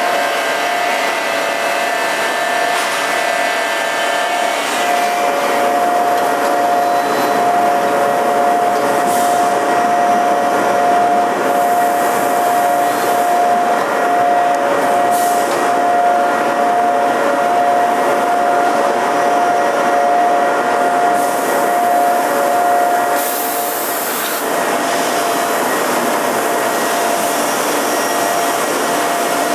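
Daito automatic structural steel band saw line running: a steady machine whine over a constant hum. It eases off slightly about three-quarters of the way through.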